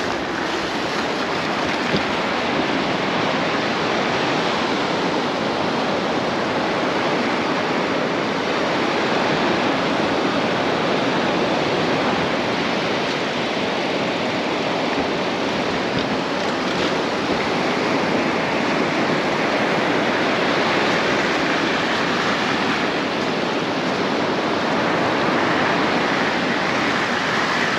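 Steady rushing of ocean surf breaking on a beach.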